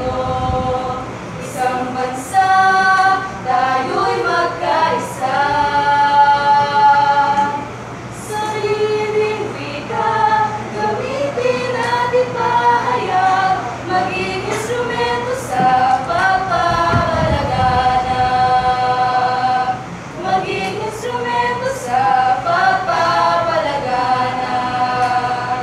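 A small mixed group of students singing a cappella in harmony, with several long held notes between shorter gliding phrases.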